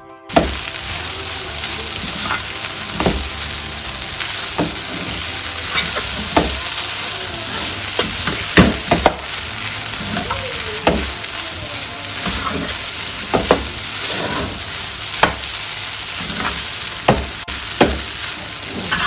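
Rice and vegetables frying in a pan, with a steady sizzle, while a utensil stirs and scrapes them, knocking sharply against the pan every second or so.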